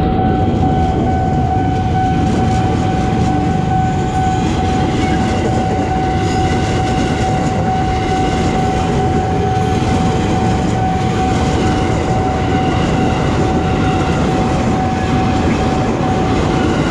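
KRL JR 205 series electric commuter train passing close by: a steady, loud rumble of wheels and running gear on the rails, with a steady high-pitched tone held throughout.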